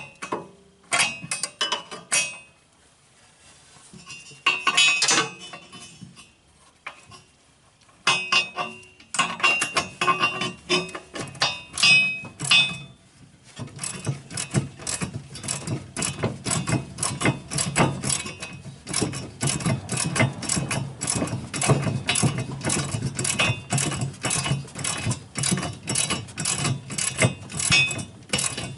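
A ratcheting wrench running a nut onto a steel shear bolt through a snowblower auger shaft. It starts with scattered metal clinks and short spells of clicking, then from about halfway through settles into a steady, fast run of ratchet clicks.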